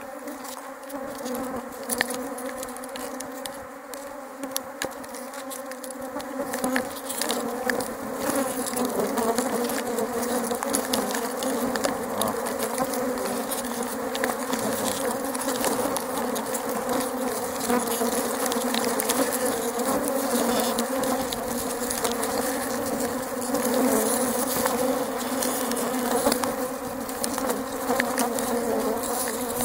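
Honeybees buzzing around an opened hive, many flying close past the microphone: a steady, many-voiced hum that grows louder about eight seconds in.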